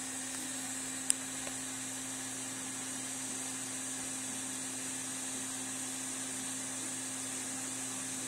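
Steady low hum and hiss of room tone, with one sharp click about a second in.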